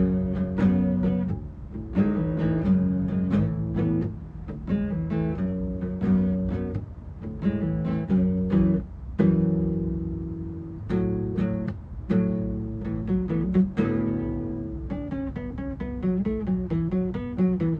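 Acoustic guitar played solo, chords struck about once a second and left to ring, with quicker picked notes near the end.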